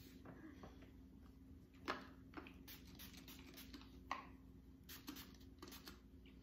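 Faint, scattered clicks and rustles of small objects being handled: a pen and a small plastic spray bottle.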